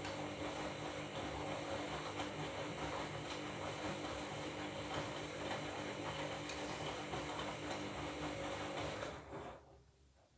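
Washing machine running with a steady motor hum and drum noise during a bed-linen wash, which cuts off suddenly about nine and a half seconds in.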